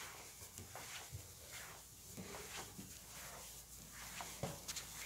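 Faint footsteps, about two a second, climbing carpeted stairs and then stepping onto a hard floor, with a few sharper clicks near the end.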